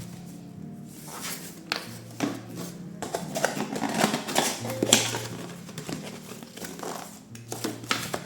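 Rustling, crinkling and light knocks of objects being handled close by, over soft background music with slow, held low notes.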